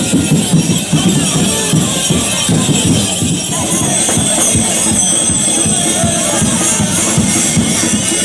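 Many people talking and calling over one another, with music and a jingling, rattling sound mixed in.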